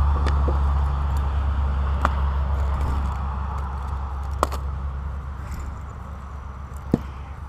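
A low steady rumble that slowly fades away. Over it come a few sharp clicks as small items, a plastic pill bottle and a fly reel, are picked up and set down on a wooden tabletop.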